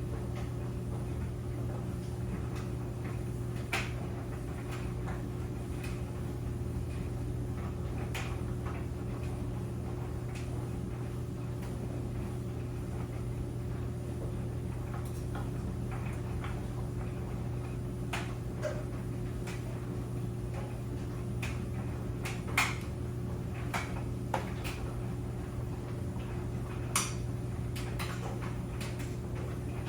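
Clothes dryer running with a steady low hum, and irregular light clicks and knocks from the tumbling drum. The sharpest knocks come about two-thirds of the way through and again near the end.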